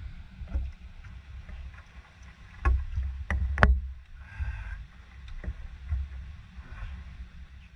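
Low rumbling noise on the microphone, with three sharp knocks close together about three seconds in.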